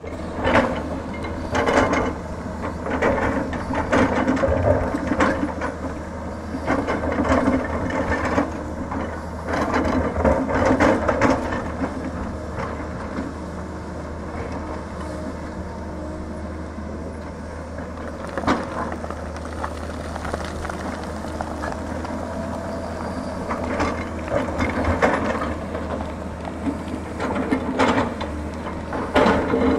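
Tata Hitachi 220 excavator's diesel engine running steadily under load while its bucket digs into a rocky hillside, with bursts of scraping and clattering earth and rock every few seconds and a calmer stretch in the middle.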